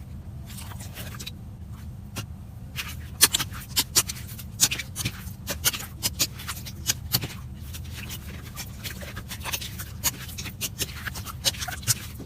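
Slime being squeezed and pressed by hand, giving irregular sharp clicks and pops that come thickest from about three seconds in, over a steady low hum.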